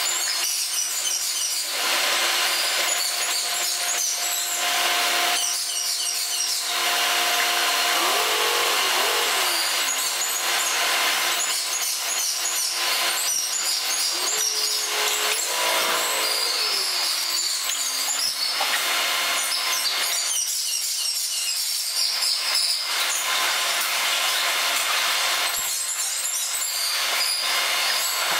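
Train-cleaning work sounds played back at six times speed: a dense, high-pitched hiss and clatter, with brief wavering tones about 8 and 15 seconds in.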